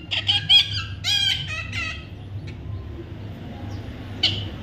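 A bird calling: a quick run of short, high-pitched squawks that rise and fall in pitch in the first two seconds, then a single harsher call near the end.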